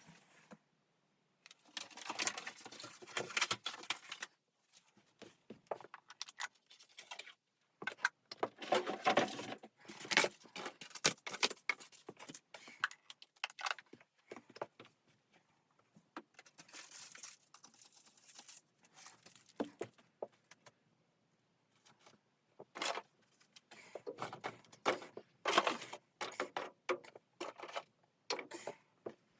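Irregular rustling and clinking of objects being handled at close range, coming in bursts of a second or two with short pauses between them.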